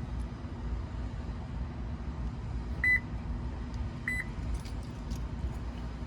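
Two short, high electronic beeps, a little over a second apart, over a steady low hum, with a few faint clicks after them.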